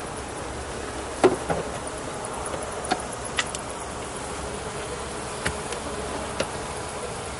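Honeybees buzzing around an opened hive, a steady hum, broken by several sharp knocks and clicks as the hive's frames and cover are handled, the loudest about a second in.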